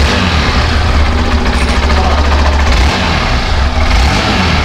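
Hero XPulse 200's 200cc oil-cooled single-cylinder engine running steadily, its exhaust giving a rapid, even low throb.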